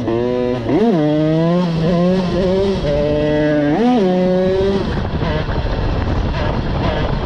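Two-stroke Derbi 50 engine fitted with an 80cc Airsal kit and BRK exhaust, revving high under hard acceleration as the bike is lifted into a wheelie. A steady high note with two quick rises in revs, about a second in and near four seconds, then the engine note fades under wind rush for the last couple of seconds.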